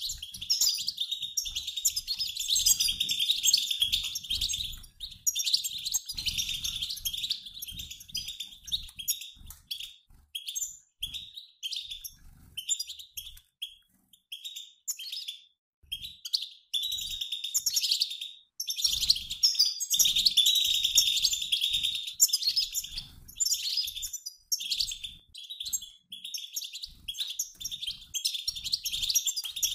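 A mixed flock of European goldfinches, males and females, chattering together in rapid high twittering chirps, like a flock in flight. This is the 'batbata' call played to stir a caged male goldfinch into song. The chatter thins to scattered chirps about ten seconds in and grows dense again shortly before twenty seconds.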